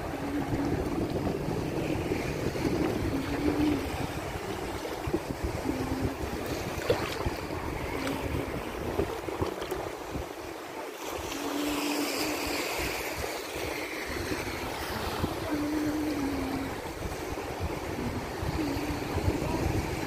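Shallow sea water lapping and washing close to shore, with wind buffeting the microphone; the wind rumble eases for a few seconds midway.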